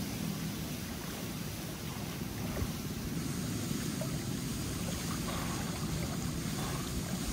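Swimming-pool water sloshing and lapping close to a phone held at the surface, over a steady low rush, as a swimmer moves through the water. A few faint small splashes come in the second half.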